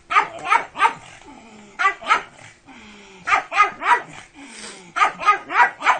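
Pug barking in four quick bursts of two to four short, sharp barks each.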